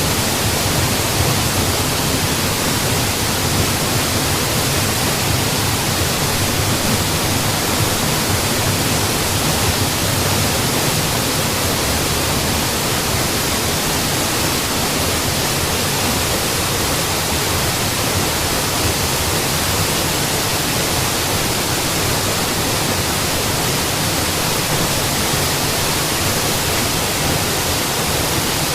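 Mountain waterfall: water pouring and splashing in a steady, unchanging rush.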